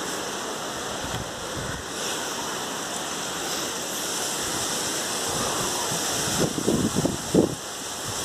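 Cyclone wind and heavy rain: a steady rushing noise as the storm tosses coconut palms, with wind buffeting the microphone.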